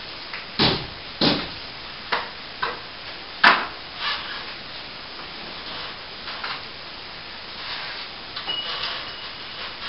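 Knocks and scrapes of plasterboard and debris being handled: a run of sharp knocks in the first few seconds, the loudest about three and a half seconds in, then quieter scraping and rustling.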